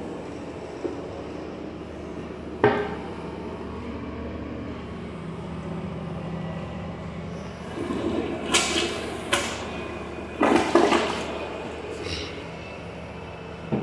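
Toilet flushed with the push button on its cistern lid: water rushes through the bowl in several loud surges for about four seconds, starting a little over halfway through. A single sharp knock comes earlier, about three seconds in.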